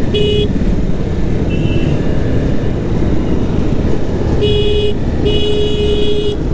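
Vehicle horn honking: a short toot at the start, then a short and a longer blast near the end. Underneath is the steady rumble of a motorcycle engine and wind noise while riding.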